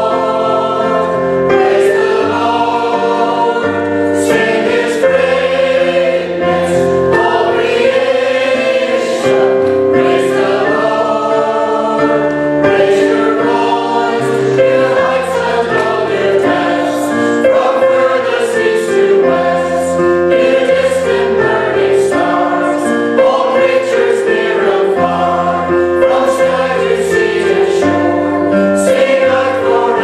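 Mixed church choir of women and men singing a harmonised anthem in several parts, with many long held notes.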